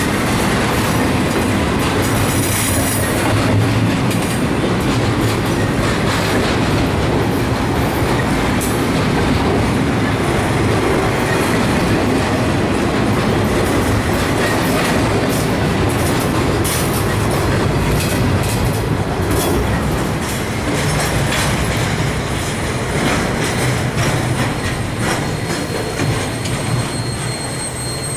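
Double-stack intermodal train's well cars rolling past: a steady rumble of steel wheels on rail, with many wheel clicks. A faint high wheel squeal comes in toward the end.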